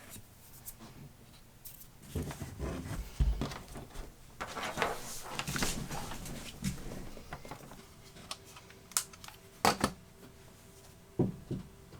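A mechanical keyboard being handled: rustling and shuffling with scattered clicks and knocks, the sharpest few near the end. A faint steady hum comes in about two-thirds of the way through.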